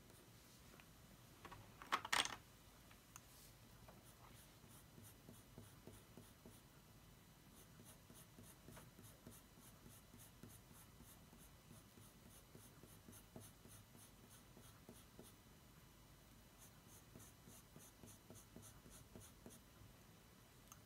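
Coloured pencil shading on drawing paper: faint, quick, repeated scratchy strokes, with one brief louder sound about two seconds in.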